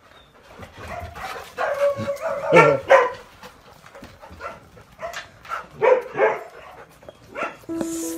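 A dog giving a string of short barks and whining yips. Music with steady tones comes in near the end.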